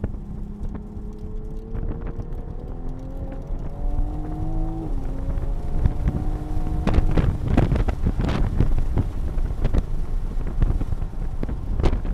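Toyota A90 Supra's engine heard from inside the cabin, pulling hard under throttle with its pitch rising steadily and a short dip in pitch about five seconds in. From about seven seconds, loud wind buffeting on the microphone rises over the engine at speed.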